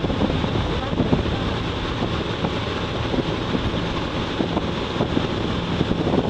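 Wind buffeting the microphone on a moving pontoon boat, over the steady drone of the boat's motor and the rush of water past the hull.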